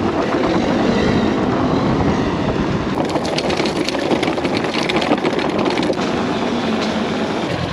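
Riding noise of a homemade electric dirt bike with a hub motor, moving over rough trail: a steady rush of noise with clattering and rattling over bumps, heaviest in the middle. The bike is bouncing and chattering, which the riders put down to rear-shock rebound damping set too fast.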